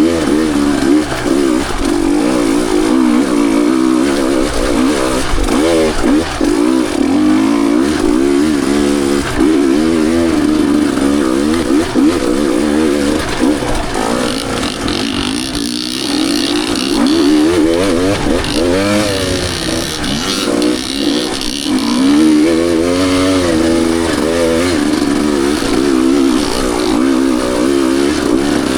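Two-stroke dirt bike engine under constant throttle changes, its pitch rising and falling every second or so.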